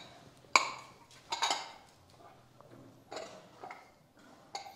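Dishes being washed by hand: a handful of separate clinks and knocks as bowls and plates are handled and set down.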